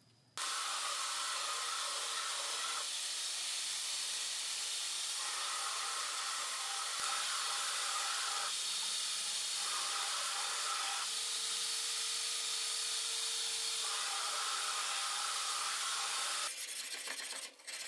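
Belt grinder grinding a steel knife blade: a steady hiss of the abrasive belt on the steel, its tone shifting every few seconds.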